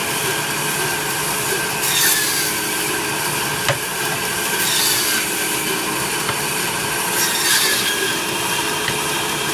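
Electric meat band saw running steadily, its blade cutting through beef shank and bone three times, each pass a short rasping hiss over the steady hum of the motor and blade. A sharp tap sounds a little before four seconds in.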